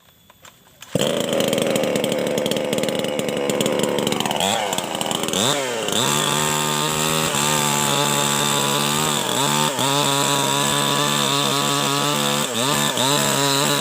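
Maestro 6500L two-stroke chainsaw running at high revs. About four seconds in it drops off and revs up and down. It then runs steadily at a lower pitch, with repeated brief dips.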